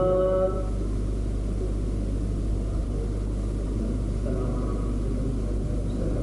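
A man's sung devotional line ends on a held note about half a second in; after that there is only a steady low rumble and hum from the hall's sound system and surroundings.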